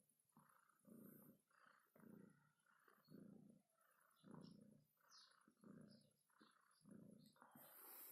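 Domestic cat purring up close, soft and rhythmic, the purr changing with each breath in and out about once a second.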